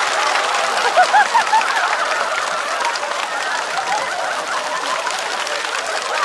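Studio audience applauding and laughing after a stand-up punchline, with a few sharp bursts of laughter about a second in.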